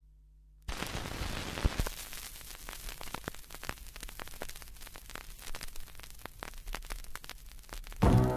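Surface noise of a 1964 London American 7-inch vinyl single playing in its lead-in groove: steady hiss with frequent crackles and pops, starting suddenly after a moment of faint hum. The record's music begins near the end.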